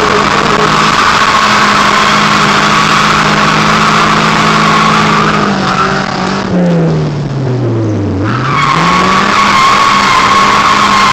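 Nissan KA24DE four-cylinder with aftermarket intake and exhaust held at steady high revs while the tyres squeal through a drift, heard from inside the cabin. About six seconds in the squeal stops and the revs fall away, then the engine climbs again and the tyres squeal once more near the end.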